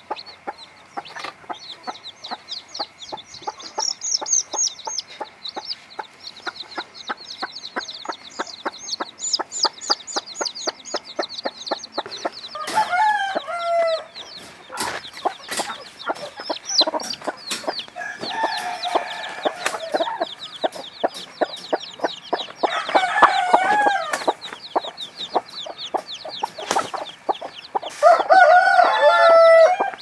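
Chicks peeping without pause in rapid, high, falling chirps. Over them an adult chicken calls loudly four times, each call lasting one to two seconds.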